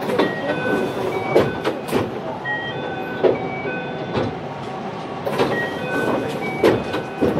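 Commuter train running, heard from inside the car, with sharp wheel clicks over rail joints every second or so. Through it comes a string of short electronic beeps at changing pitches.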